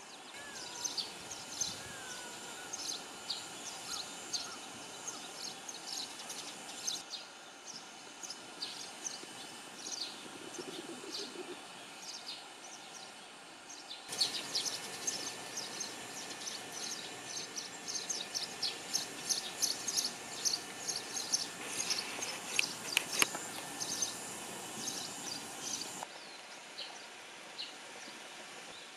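Outdoor ambience full of small birds chirping in quick, high-pitched calls, busiest and loudest in the middle stretch, over a steady background hiss. The background shifts abruptly a few times.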